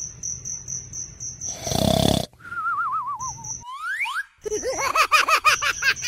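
A quick string of whistle-like sound effects: a rapid high beeping, a short noisy burst about two seconds in, a wobbling tone sliding downward, quick rising whistles, then a run of bouncy rising-and-falling tones.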